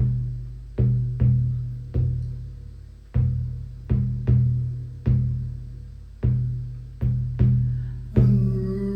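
Shamanic hand drum beaten slowly in an uneven, often paired rhythm, about one to two beats a second. Each beat is a deep boom that rings on and fades. Near the end a steady higher tone joins the drumming.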